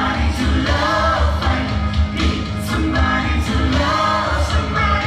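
Live rock stage-show music: voices singing over a heavy, pulsing bass beat.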